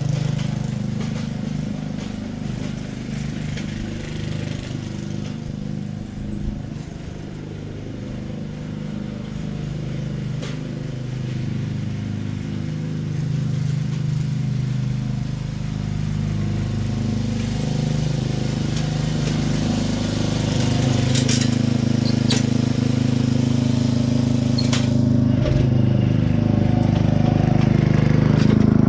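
Ryan Lawnaire core aerator's small gas engine running steadily as the machine works the lawn, growing louder toward the end as it comes close. A few sharp clacks sound in the second half.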